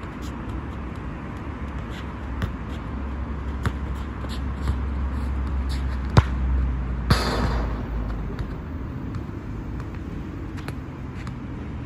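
A football kicked hard on an artificial-turf court, a single sharp thud about six seconds in, followed under a second later by a brief metallic rattle as the ball strikes the mesh fence. Scattered light taps and a steady low rumble underneath.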